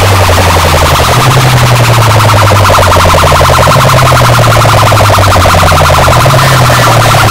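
Very loud DJ competition track blasting from a large sound system: a heavy bass line that shifts between low notes every few seconds, under a fast-pulsing, siren-like warble.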